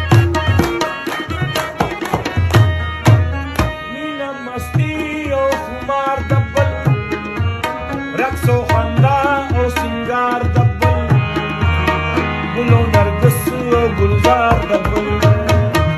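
Instrumental interlude of Pashto ghazal music: tabla playing a dense, quick rhythm under a wavering melodic instrument line.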